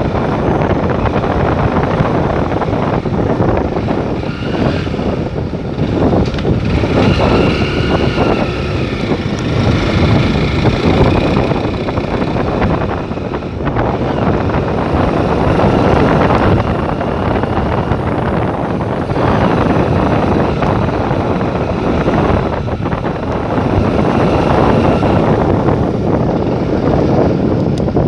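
Steady noise of a vehicle travelling along a road, with engine and road noise and wind buffeting the microphone, swelling and easing a little.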